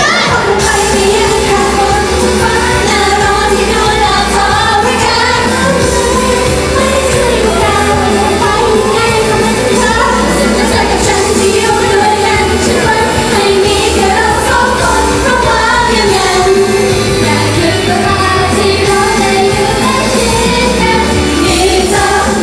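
Female idol group singing a pop song live into handheld microphones over loud pop backing music.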